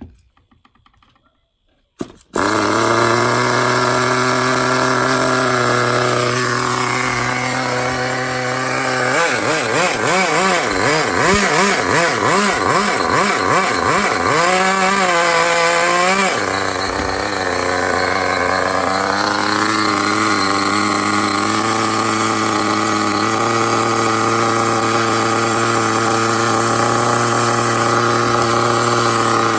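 Small two-stroke nitro (glow) engine of an RC car catches suddenly about two seconds in and runs steadily. Through the middle it revs rapidly up and down, then it settles back to a steady run. The long-stored engine is running again.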